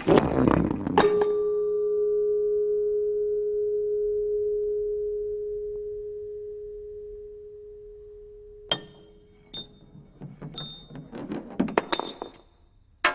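Metal Honda Accord car parts clattering together, then a sharp strike about a second in sets a metal part ringing with one clear tone that slowly fades over about seven seconds. Near the end, a run of small metallic ticks and high pings as parts tap against each other.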